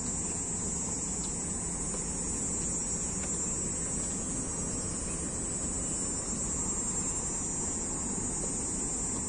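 Steady outdoor city ambience: a low rumble of distant traffic with a constant high hiss over it, and no distinct events.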